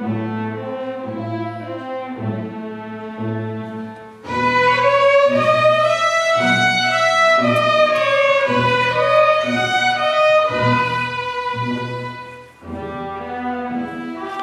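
Student string orchestra of violins, cellos and double bass playing. A quieter passage of repeated low notes gives way, about four seconds in, to the full ensemble coming in louder with a melody that rises and then falls. Near the end it drops back to the quieter texture.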